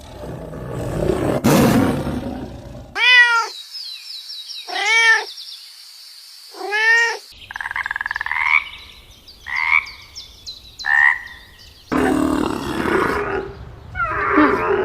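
A run of different animal calls, one after another: a rough noisy call first, then three evenly spaced arching pitched calls, then three shorter, higher calls, and another rough call near the end.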